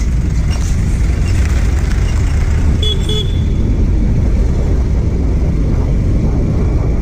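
Motorcycle on the move in traffic: steady engine and wind noise on the rider's microphone, with a short horn beep about three seconds in.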